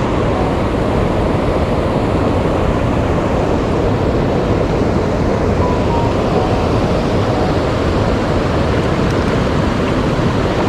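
Steady, loud rushing of water with no breaks, heaviest in the low end, mixed with wind on the microphone.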